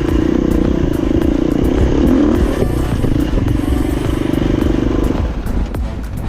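Enduro dirt bike engine running steadily under throttle, a buzzing note that eases off about five seconds in, with rumble and clatter from the ride.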